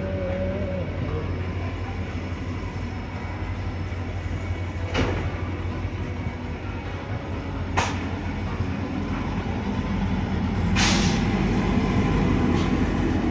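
Inside an Indian Railways First AC sleeper coach: the steady low rumble and hum of the train, with three sharp knocks. The last knock, about eleven seconds in, is a longer rattle, and the rumble grows louder from there.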